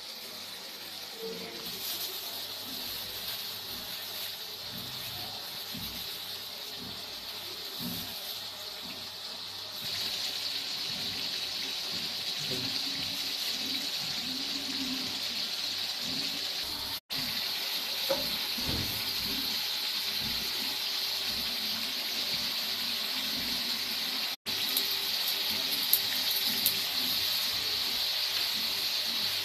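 Food sizzling in hot oil in a frying pan on a gas stove, a steady frying hiss that gets louder about ten seconds in.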